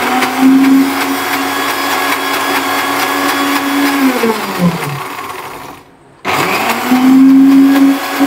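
Electric blender motor blending thick homemade mayonnaise in bursts. It spins up to a steady hum, is switched off about four seconds in and winds down with falling pitch, then is switched on again and spins back up near the end. The blender is run intermittently to spare the motor and blend the mix evenly.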